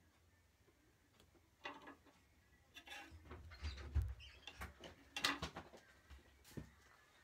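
Small handling noises at a table: scattered clicks and knocks, with a dull thump about four seconds in.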